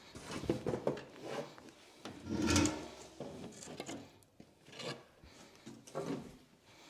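Wooden pieces being handled and set down, sliding and scraping with irregular knocks. The loudest scrape comes about two and a half seconds in.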